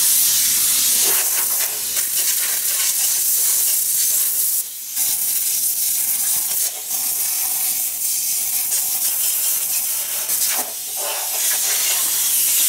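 Compressed-air blow gun hissing steadily as it blows debris out of a seized engine's cylinders, with brief breaks about five, seven and eleven seconds in.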